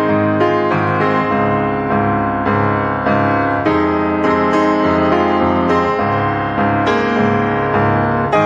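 Background music led by piano, with chords and notes changing about every half second to a second.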